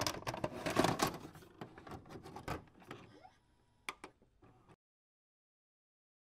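A rapid clatter of sharp clicks and knocks, densest and loudest in the first three seconds, thinning to a few separate clicks and cutting off abruptly just before five seconds in.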